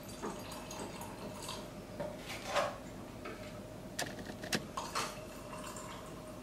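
Apple cider poured from a plastic jug into a glass, then a few sharp knocks and glass clinks about four to five seconds in as the jug is set down on the granite counter and a bottle is picked up.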